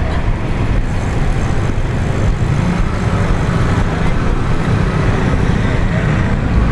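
Steady low rumble of wind buffeting and tyre noise on the microphone of a GoPro Hero 7 Black action camera riding on a moving bicycle.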